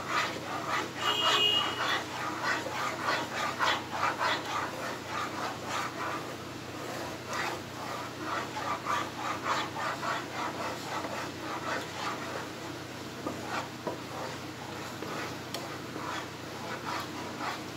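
Wooden spatula stirring and scraping a thick, sticky milk-powder and condensed-milk mixture around a kadhai, a rubbing, squelching stroke repeating about two to three times a second. The mixture is thickening but has not yet come together into a dough.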